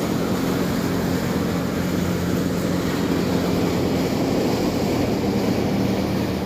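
An engine running steadily, a low even hum under a rushing noise.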